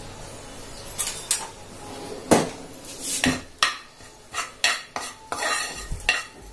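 Slotted metal spatula scraping and knocking against a kadhai as gram flour is stirred and roasted in a little oil. Irregular scrapes and clinks begin about a second in, the loudest about two seconds in.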